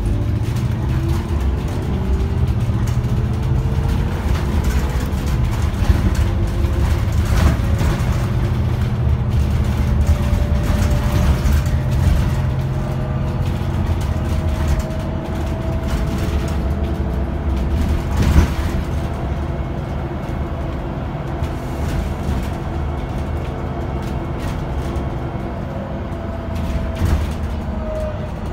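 Cabin ride noise of an Iveco Urbanway 12 CNG city bus under way: steady low engine and road rumble with a faint whine that rises slowly in pitch, holds, and drops near the end. A few knocks stand out, the sharpest about two-thirds of the way through.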